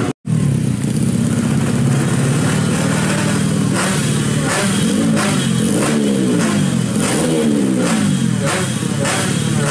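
Small 115cc single-cylinder drag motorcycle engine on a stock carburettor and CDI running at a fast idle, then blipped repeatedly from about four seconds in, the revs rising and falling in quick sweeps with sharp cracks at each blip.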